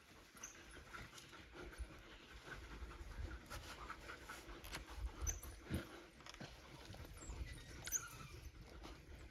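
African wild dogs calling faintly: a few short, high chirps over a low rumble.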